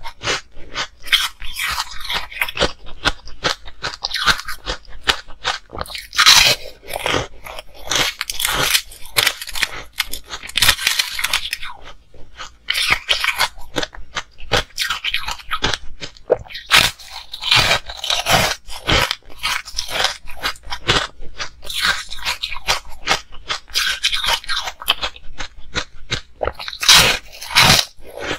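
Pink frozen ice discs being bitten and chewed: an irregular, continual run of sharp crunches and cracks, with brief pauses between bites.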